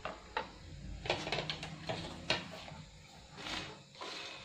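Wooden spatula scraping and knocking dried red chillies around a dry nonstick pan: a string of irregular light clicks and scrapes as the chillies are turned for dry-roasting.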